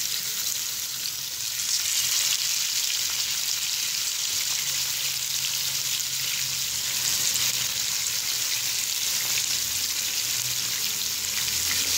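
Masala-marinated fish pieces frying in shallow cooking oil in a non-stick pan over a medium flame: a steady, dense sizzle and crackle, which swells a little as more pieces are laid into the oil.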